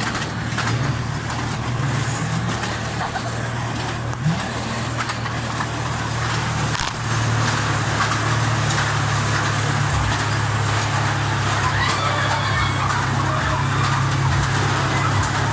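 Steady low mechanical drone of the carnival horror train ride running, with a noisy rumble over it; it gets louder about seven seconds in.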